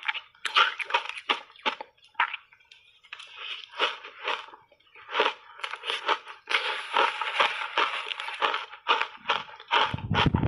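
Crunching and chewing of frozen shaved ice coated in matcha tea and milk powder: a fast run of crisp crunches with a short lull about two seconds in. A low thump comes near the end.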